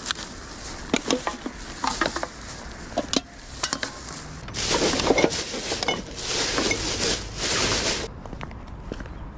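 Litter-picker grabber clicking and bits of rubbish knocking into a plastic bag for a few seconds, then loud rustling and crinkling of the plastic rubbish bag as the full bag is handled, stopping abruptly near the end.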